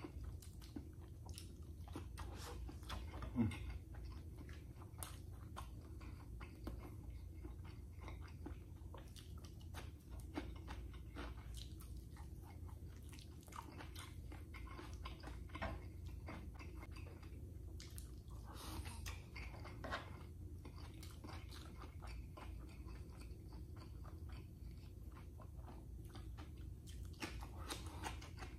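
Close-up mouth sounds of a person eating with their hands: steady chewing with scattered small crunches and smacks, as from crispy fried dried fish (tuyo) and rice. One louder mouth sound comes about three seconds in.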